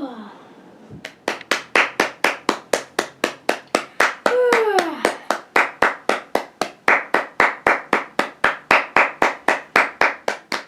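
Hands clapping in a steady, even rhythm, about four claps a second, starting about a second in. A voice gives a falling, sliding call at the start and again about four seconds in.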